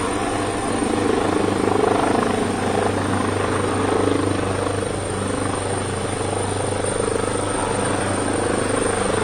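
Steady mechanical drone with a low hum and a constant thin high whine, unchanging throughout.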